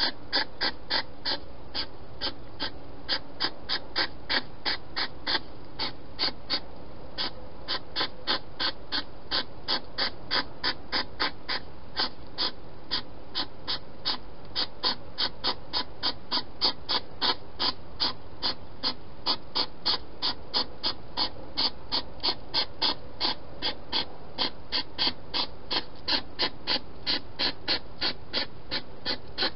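Steady, evenly spaced clicking, about two and a half clicks a second, with no pause.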